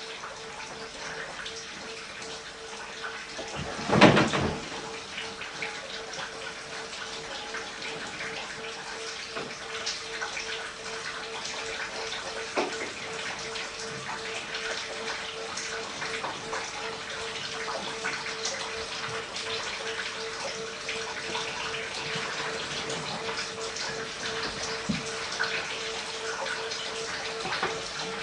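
Water falling in drops from above into a basin, a steady patter and trickle. A loud thump comes about four seconds in, and a faint steady tone hums underneath.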